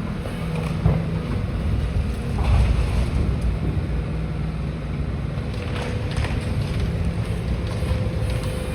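Demolition excavator's diesel engine running steadily, with a few short crunches and knocks of debris about one, two and a half, and six seconds in.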